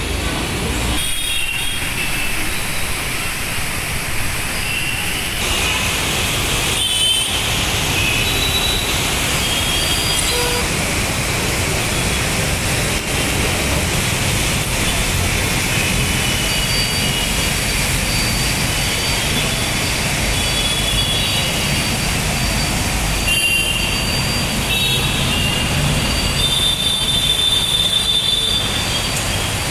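Steady noise of traffic on a rain-soaked road, tyres hissing through water, with thin high-pitched squeals coming and going over it.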